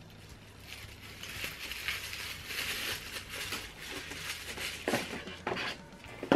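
Paper packaging crinkling and rustling as it is pulled from a small fabric pouch and crumpled in the hands, starting about a second in, with a few sharper clicks near the end.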